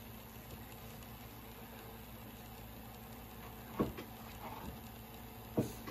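Faint steady low hum of a small motorized rotating display stand turning a diecast car, with two brief short sounds near the end.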